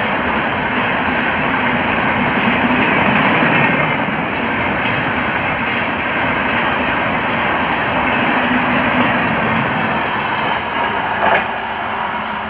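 LHB passenger coaches of a Rajdhani Express passing at speed: a steady rush of wheels on rail. There is one sharp clack about eleven seconds in, and the noise begins to fade as the end of the train goes by.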